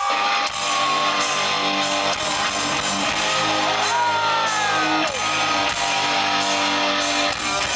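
Live heavy metal band playing loud through a stadium PA: a heavy, down-tuned electric guitar riff with bass guitar and drums.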